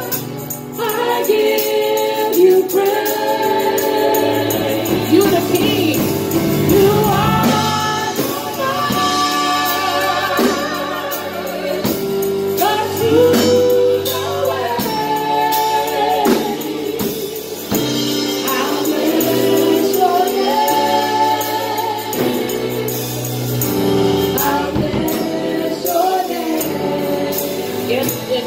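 Live gospel worship music: women's voices singing lead and backing over an electric keyboard and a drum kit.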